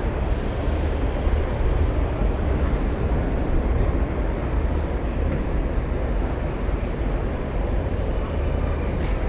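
Steady low rumble and hum of a large exhibition hall's room noise, with faint, indistinct crowd chatter mixed in.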